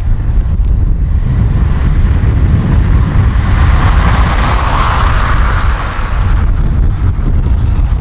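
Wind buffeting the microphone over a heavy low rumble, with a hissing swell that builds in the middle and fades out about six and a half seconds in.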